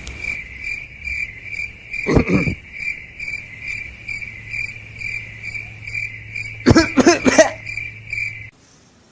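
Crickets chirping steadily at about three chirps a second, with a person coughing once about two seconds in and a harsh bout of coughing near the end; the crickets cut off abruptly just before the end.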